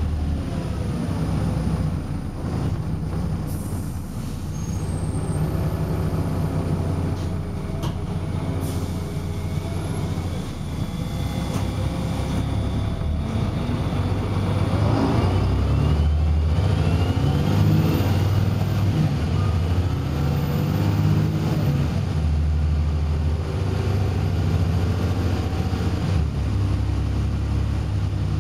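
Volvo B7RLE bus's six-cylinder diesel heard from inside the saloon, running under load. About halfway through the engine over-revs, its pitch climbing sharply and the noise growing louder, then it settles into a steady run with a high whine over it.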